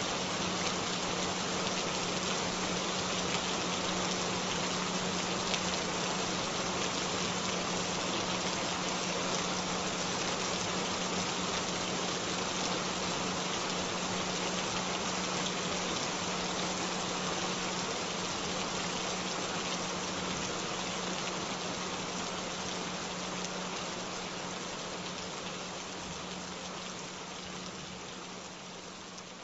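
Steady rain-drop noise with a constant low tone held underneath. The tone is the track's added healing frequency. Both fade out gradually over the last several seconds.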